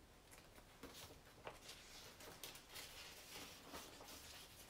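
Faint, irregular rustling and light ticks of paper flashcards being handled and shuffled.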